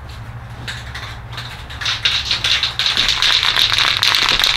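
An aerosol spray paint can being shaken, its mixing ball rattling rapidly. The rattling starts faintly and gets loud about two seconds in.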